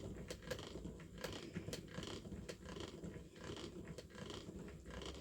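Ashford Kiwi 2 spinning wheel being treadled, its mechanism making faint, repeated light clicks about twice a second over a low rumble.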